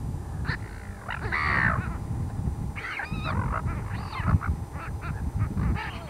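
A flock of silver gulls squawking, with harsh calls again and again and the longest ones about a second in and around three seconds in. A low rumble of wind on the camcorder microphone runs underneath.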